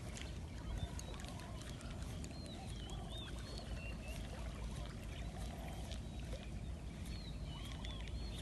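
Small birds chirping in short rising and falling notes over a steady low rumble, with a few faint sharp clicks.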